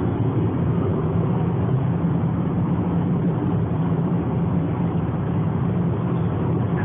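Steady road and engine noise inside the cabin of a moving car, a low, even rumble, picked up by a phone's microphone.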